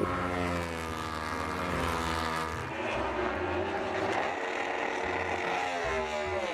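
Racing motorcycle engine starting suddenly, its pitch falling over the first two seconds, then running on and climbing in pitch near the end before it cuts off.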